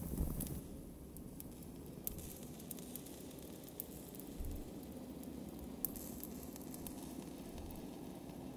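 A quiet passage of live electronic music: a low rumble with sparse crackling clicks scattered through it, after a louder low-pitched sound fades out about half a second in.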